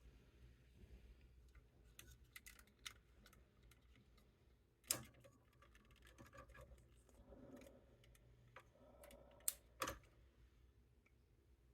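Faint, sparse clicks and taps of plastic model-kit parts being handled, with a sharper click about five seconds in and two more in quick succession near the end.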